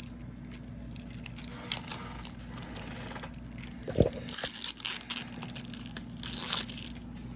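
Plastic wrapping on a pack of playing cards crinkling and tearing as it is picked open with fingernails, with one sharp snap about four seconds in. A steady low hum runs underneath.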